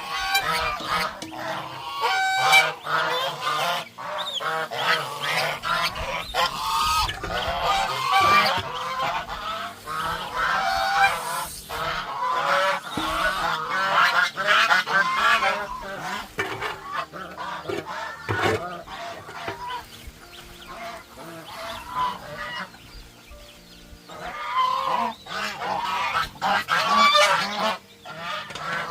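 A flock of farm poultry calling, with many short calls overlapping and a brief lull about two-thirds of the way through.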